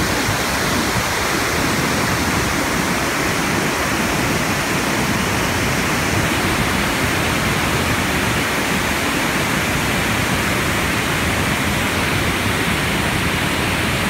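Loud, steady rush of a large cascading waterfall in flood, carrying a heavy volume of muddy water.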